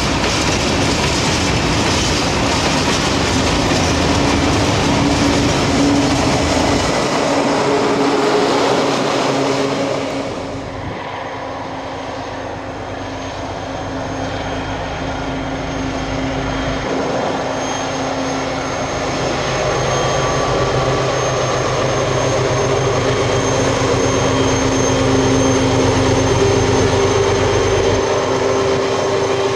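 Freight train of hopper wagons rolling past close by, with a dense clatter of wheels on rail. About ten seconds in this cuts to a diesel locomotive's engine running with a steady drone, hauling a freight train and growing louder as it approaches.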